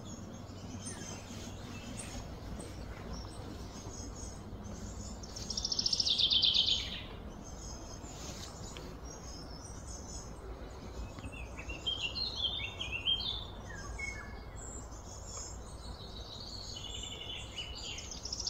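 Birds chirping and calling over a steady low background hum. A loud, pulsed buzzing call sliding downward comes about six seconds in, a run of stepped chirps follows a few seconds later, and another loud pulsed call starts near the end.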